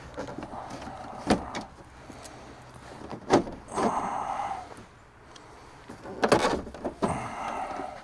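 Plastic lower dash panel of a Freightliner FLD truck being worked into place by hand: a few sharp knocks and stretches of plastic scraping and rubbing against the dash.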